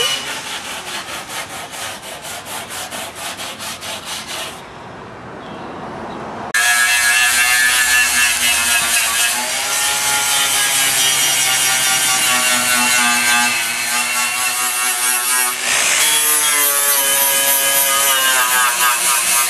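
For about the first four seconds, a fast rhythmic rasping of about five strokes a second. Then, about six seconds in, an electric angle grinder starts up and runs steadily against the Jeep CJ-5's steel body panel, grinding out rust that is bubbling under the paint. Its whine wavers slightly with the pressure and dips briefly near the end.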